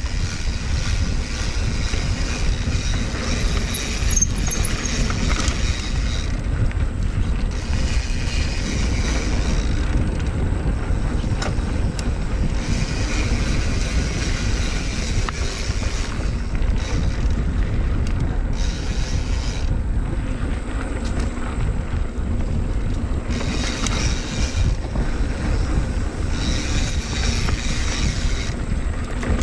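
Mountain bike ridden on a dirt trail: wind rushing over the microphone and tyres rumbling over the ground, with brighter, hissier stretches of rattle coming and going every few seconds.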